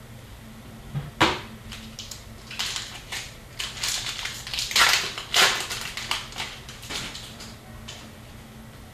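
Foil wrapper of a hockey card pack crinkling as it is handled: a run of sharp, irregular crackles and rustles starting about a second in, loudest about halfway, and dying away near the end.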